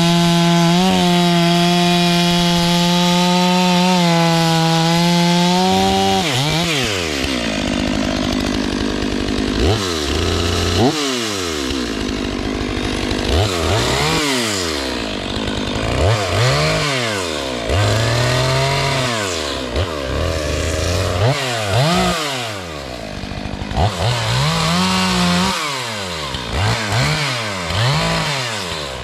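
Gas chainsaw held at a steady high-speed whine for about six seconds, then revved up and let drop back over and over, its pitch climbing and falling every second or two.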